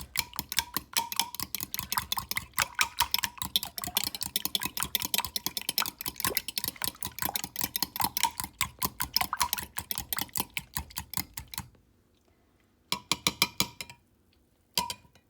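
Eggs, cream and milk being beaten fast in a bowl, the utensil clicking against the bowl about five or six times a second. The beating stops about twelve seconds in, then resumes in two short spurts near the end.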